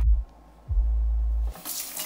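Kitchen tap water running into a plastic basin in the sink, starting about three-quarters of the way through. Before that, deep steady bass tones of background music.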